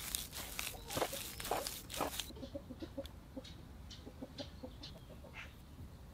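A large blade chopping and mixing mashed potato in a wooden bowl, with several soft wet strokes in about the first two seconds. After that comes a fainter run of short, quick little clicks, several a second.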